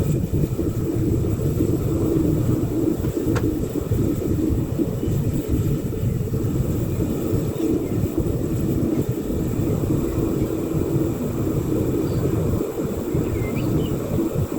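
Home foundry furnace burner running with a steady low rumble during a copper melt.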